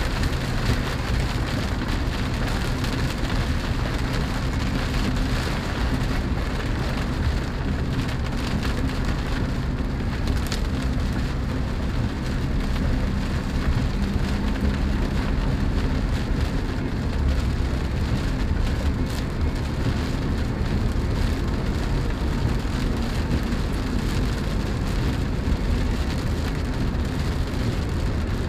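Rain pattering on the roof and glass of a Chevrolet Spark, heard from inside the cabin, over a steady low hum of road and engine noise while driving.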